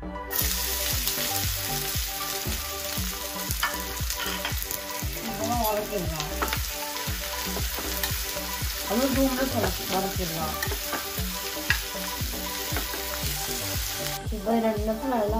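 Ridge gourd peel pieces sizzling as they fry in a hot stainless steel pan, the sizzle starting the moment they go in, with the clicks and scrapes of a slotted steel spatula stirring them against the pan. The sizzle cuts off abruptly near the end.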